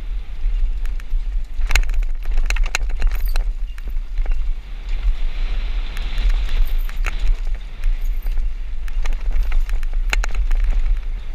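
Downhill mountain bike running fast down a rocky dirt trail: tyres rolling over loose dirt and stones, with frequent sharp rattles and knocks from the bike over bumps. Heavy wind rumble on the microphone underlies it all.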